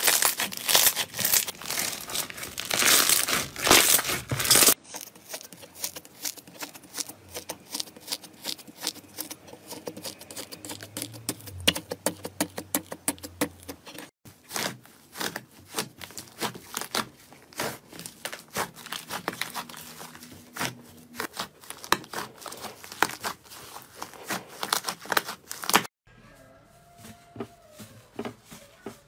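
Slime being squeezed and worked by hand. For the first five seconds, beaded slime gives dense, loud crackling and popping. The sound then changes abruptly to sparser clicks and pops, and turns softer and quieter after about 26 seconds.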